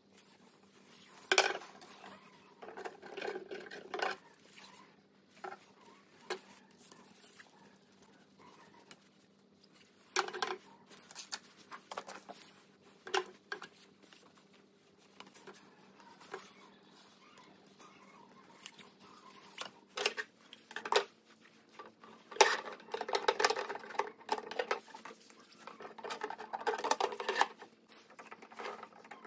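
Carbon-fibre drone frame parts being handled on a wooden desk: scattered sharp knocks and clicks of tubes and plates, with a denser run of rattling and scraping near the end as screws are turned into the frame's tube clamps with a screwdriver.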